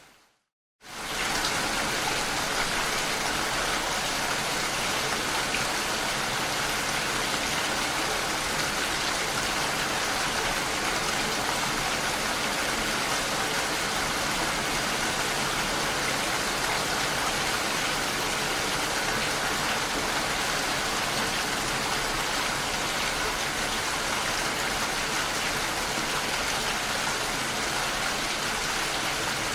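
Steady, heavy rain pattering on a window pane. It is cut off in near-total silence for a moment at the start, then comes back in about a second in and runs on evenly.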